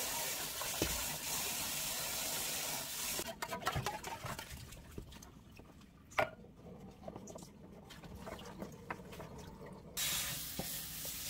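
A metal spoon clinks and scrapes against a stainless-steel mixing bowl as coconut cream is stirred into banh xeo flour, with a sharp clink about six seconds in. A steady hiss fills the first three seconds and comes back near the end.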